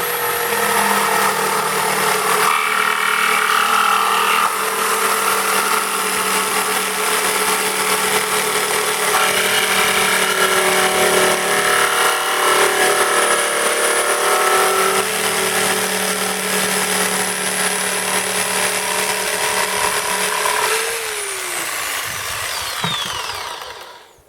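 Electric jigsaw with a Screwfix own-brand 10 TPI wood blade cutting through an oak floorboard and the nails embedded in it, its motor running at a steady whine. Near the end the motor is switched off and winds down, the whine falling in pitch until it stops.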